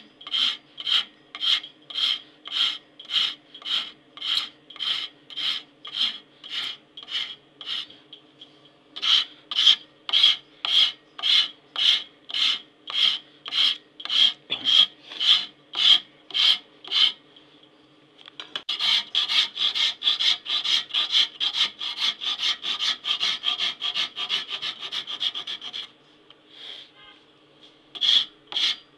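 Flat hand file rasping back and forth across a brass knife fitting held in a vise, in even strokes of a little under two a second with two short pauses. Past the middle the strokes turn quicker and shorter, about four a second, for several seconds, then stop briefly and resume near the end.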